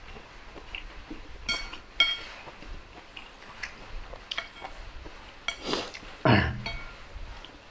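Metal spoon clinking against a bowl while scooping soup, with two sharp ringing clinks about a second and a half to two seconds in and a few lighter taps. Near the end comes a louder mouth sound of eating that falls in pitch.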